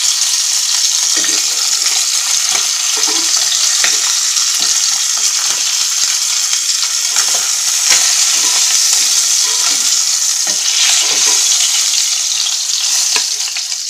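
Tilapia pieces sizzling in hot oil in a nonstick wok, with metal tongs clicking and scraping against the pan as the fried fish is lifted out. The sizzle is loud and steady and dies down near the end.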